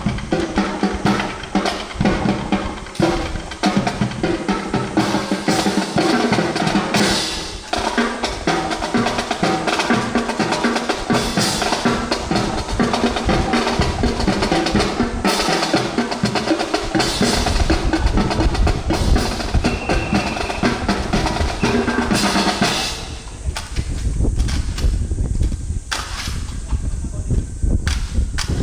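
Drum-led marching music: snare drum rolls and strikes over bass drum.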